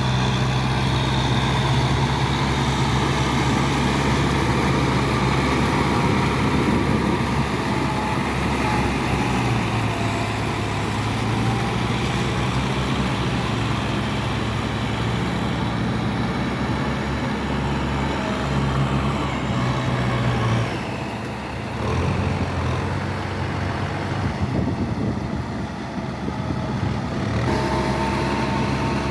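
Kubota farm tractor's diesel engine running steadily while working a rice paddy. About two-thirds of the way through it goes briefly quieter and thinner, then picks up again.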